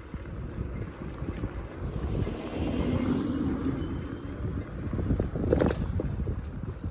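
Wind buffeting the microphone: a low, gusty, flickering rumble, with a brief sharp sound about five and a half seconds in.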